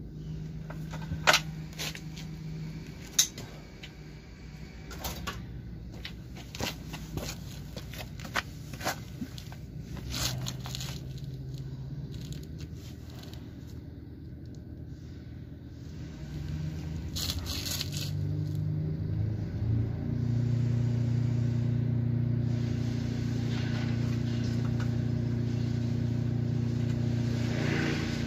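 Sharp metal clicks and knocks from hand work on a moped's thin aluminium side stand, most of them in the first ten seconds or so. From about two-thirds of the way in, a steady engine drone grows and holds; it sounds like a hedge-cutting machine working in the lane.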